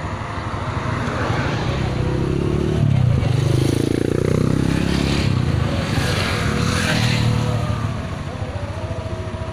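Motorcycle engines running in slow, jammed road traffic. A motorbike passes close by about three seconds in, growing louder, its engine pitch dipping and then rising again.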